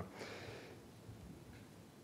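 A man's faint short breath in during a pause between sentences, then near silence with room tone.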